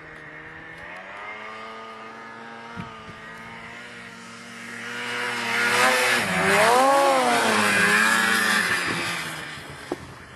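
Polaris Pro-RMK 800 snowmobile's two-stroke twin engine running, growing louder as the sled comes close, with the pitch dipping and rising as the throttle is worked, then fading as it moves away.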